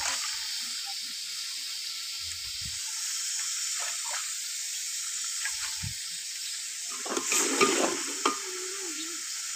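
Browned onions sizzling and simmering in oil and water in a large aluminium pot, a steady hiss. About seven seconds in, a metal slotted ladle stirs and scrapes in the pot, ending in a sharp clink.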